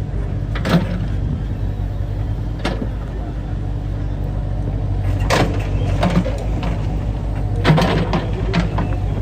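A motor engine running steadily, with several short, sharp knocks over it.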